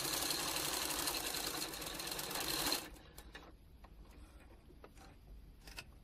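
Electric home sewing machine stitching at a steady speed, its rapid even clatter stopping abruptly about three seconds in as the seam is finished. A few faint clicks follow.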